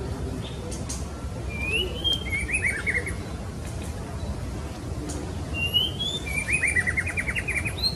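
Female white-rumped shama calling twice, each phrase a rising whistle followed by a quick run of short descending notes, the second phrase longer.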